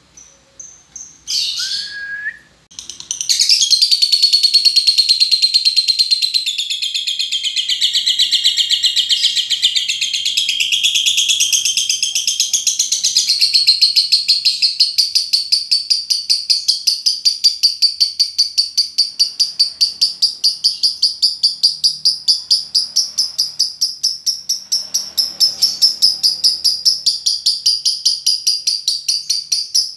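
Lovebird ngekek: a few short chirps, then about three seconds in a long, unbroken chattering trill of rapid high-pitched pulses that runs on for over twenty-five seconds. This is the long-duration 'ngekek panjang' prized in contest lovebirds.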